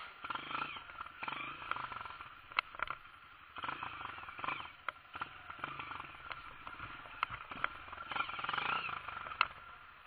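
Off-road motorcycle engine running at low revs as the bike rolls down a steep rocky trail, with stones clattering and sharp knocks from the tyres and suspension over the rocks, several of them standing out.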